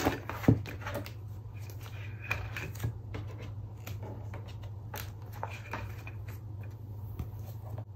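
Plastic binder sleeve pages being handled and turned: light rustling and scattered clicks, with one sharper click about half a second in, over a steady low hum.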